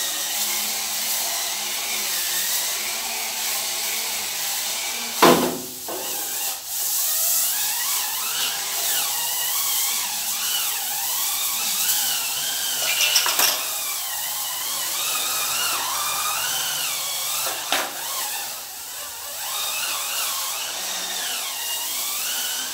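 Hurricane Spin Scrubber's battery-powered motor whirring as its spinning brush scrubs a wet, foamy tiled floor, the whine wavering up and down in pitch. A few sharp knocks break in now and then.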